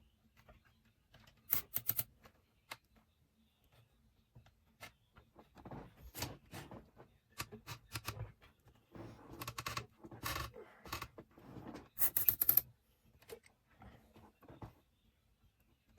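Irregular clicks, taps and rustling from computer parts and cables being handled and fitted, with a cluster of sharper clicks about twelve seconds in.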